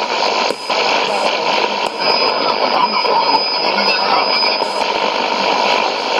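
Shortwave AM static and hiss from a Sony ICF-2001D receiver tuned around 6160 kHz, with a brief dip about half a second in and a thin, steady high whistle for a couple of seconds in the middle.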